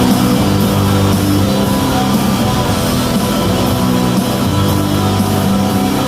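Rock music with bass, guitar and a steady drum beat.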